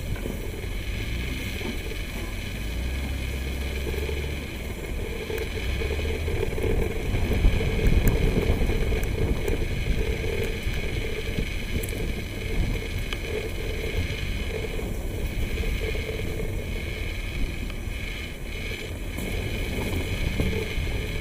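Steady driving noise from inside a vehicle on a dirt road: engine running and tyres rolling over loose dirt and gravel, a low rumble that gets a little louder about a third of the way in.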